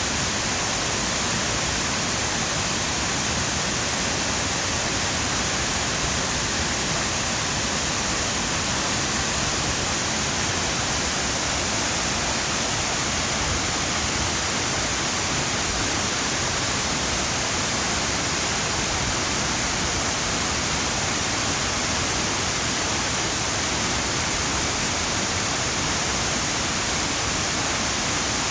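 Waterfall heard close to its base: a loud, steady rush of falling water with no breaks or changes.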